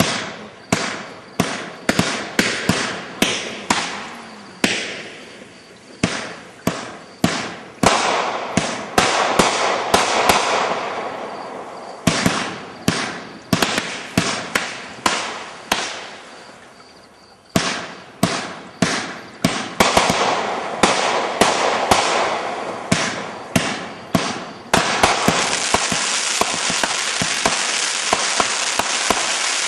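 A 30-shot, 500-gram 'Magician' firework cake firing: a rapid series of sharp shots, each fading away, with glittering star bursts that swell into a dense crackle at times. The last five seconds are a continuous crackle.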